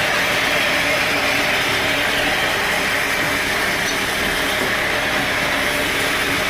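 Sawmill machinery running steadily: an even mechanical whir with a constant hum underneath.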